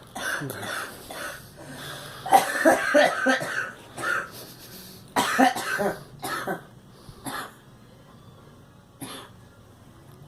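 A girl coughing in fits: two runs of several rapid coughs, the first about two seconds in and the second about five seconds in, then single coughs growing sparser toward the end.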